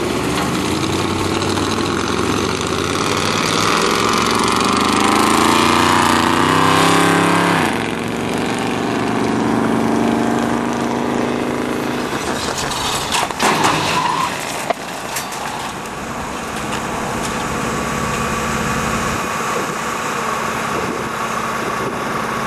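Vehicle engine revving higher and higher for about seven seconds as it accelerates toward the barrier, then dropping off and running steadier. About 13 seconds in, a pickup truck hits a truck-mounted steel crash barrier with a loud crash and a few sharp metal impacts.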